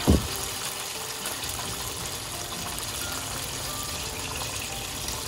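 Chicken karaage pieces deep-frying in hot oil, a steady sizzle.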